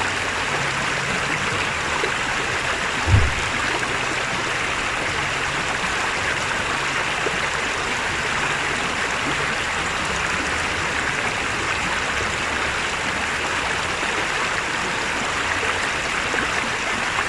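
Steady rush of water over the rocks of a stream's rapids, with a single low thump about three seconds in.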